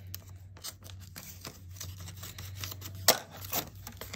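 Scissors cutting open a paper envelope: a run of short snips and paper rustles, with one louder snip about three seconds in.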